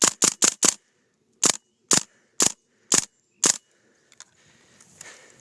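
Airsoft gun firing: four quick shots about a fifth of a second apart, then five more spaced about half a second apart, each a sharp snap.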